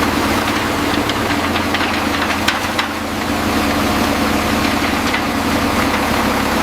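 Concrete pump's engine running steadily, with a few sharp clicks about two and a half seconds in.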